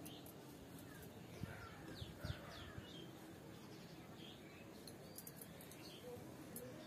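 Faint chirping of small birds, short falling chirps repeated throughout. Twice, about one and a half and two and a half seconds in, a soft short knock.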